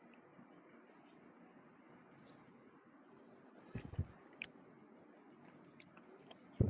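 Steady, faint, high-pitched cricket trill. A few short knocks come about four seconds in and one louder knock near the end, from motorcycle clutch parts being handled.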